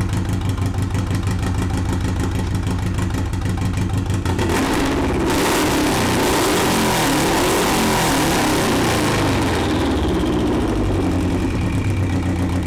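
Freshly broken-in turbocharged Subaru EJ25 flat-four idling with a rumble. About four and a half seconds in it is revved up, running high and wavering in pitch for around five seconds, then drops back to idle near the end.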